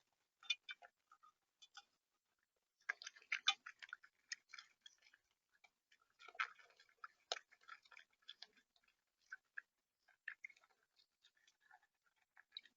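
Animal eating seed at a bird feeder close to the camera's microphone: a run of quiet, irregular clicks and taps as the seed is cracked, thickest about three seconds in and again from about six to eight seconds.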